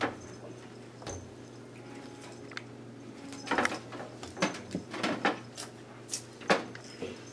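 Two cats, a Ragdoll and a black-and-white cat, wrestling on a tiled floor: a run of bumps, knocks and scuffles of bodies and paws against the floor, curtain and furniture. The knocks are sparse at first and come thick and fast from about three and a half seconds in.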